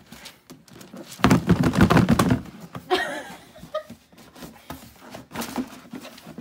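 Handling of a cardboard shoe box and tissue paper: rustling and knocking, with a loud burst of rustling about a second in and softer handling as the box lid is pulled off near the end.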